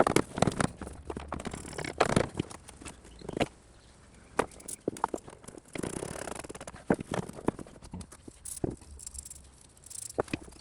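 Irregular clicks, knocks and light rattles of parts and hand tools being handled while components are fitted into a jet ski's engine bay, with a short scraping rustle about midway.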